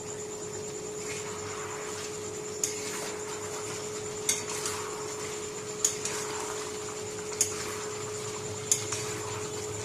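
A cooking utensil knocking against a pot, about six sharp clinks spaced roughly a second and a half apart, over a steady hiss.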